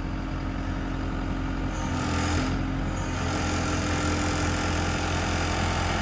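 New Holland skid steer's diesel engine running steadily while the loader drives and turns, with the engine note swelling a little about two seconds in.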